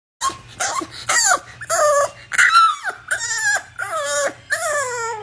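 A bulldog-type puppy whining in a string of about eight short cries that bend up and down in pitch, the last one longer.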